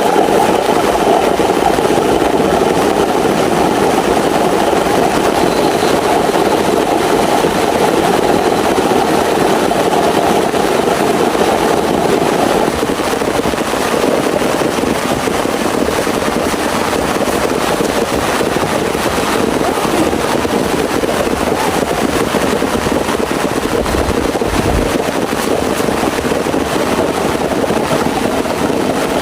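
Heavy rain falling steadily as a dense, loud hiss; about twelve seconds in, the sound shifts and its deeper middle part thins out.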